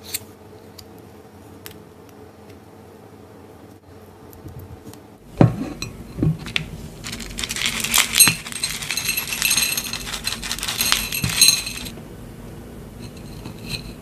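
A ceramic plate is set down on a table with a sharp knock. Then dry granola (oats and nuts) is scattered and pressed out across the plate, clinking and rattling against the ceramic for about five seconds before it quietens.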